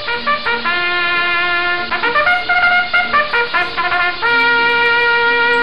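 Background music: a melody of short pitched notes, ending on one long held note about four seconds in.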